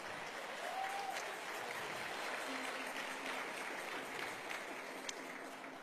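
Audience applauding, steady and then dying away near the end.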